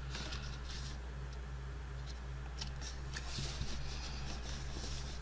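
Faint rustling and rubbing of cardstock as hands press and slide a glued box panel flat on a cutting mat, with a few soft scrapes, over a steady low hum.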